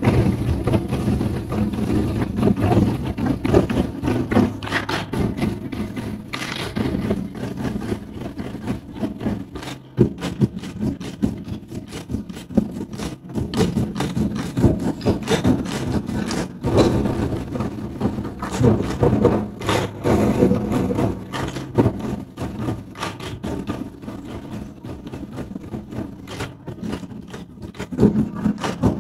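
Several large Chinese lion-dance drums beaten with wooden sticks in a fast, dense run of strikes, the deep drum tones ringing under them.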